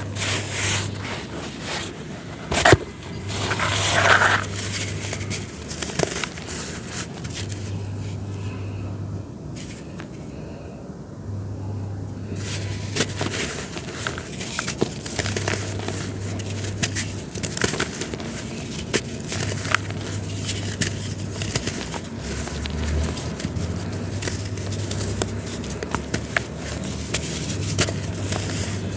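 Dry, gritty material crumbling and being crushed, with dense small crackles and scraping grains. There is a sharp crunch about three seconds in and a longer, louder crunch just after it.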